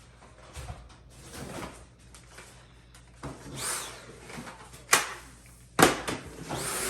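A vacuum cleaner being picked up and handled: scattered clatter and knocks, two of them sharp and loud in the second half. A rising whine starts near the end.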